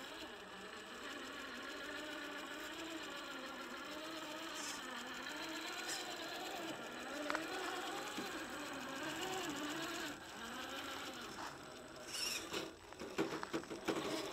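Electric motor and portal-axle gears of an Axial SCX10 III RC rock crawler whining as it crawls, the pitch rising and falling with the throttle. A few sharp knocks and clicks near the end.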